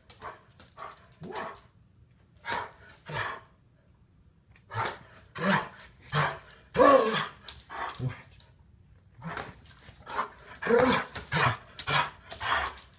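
Red Doberman pinscher barking in play, a string of short barks with a lull about four seconds in and more frequent barks after it.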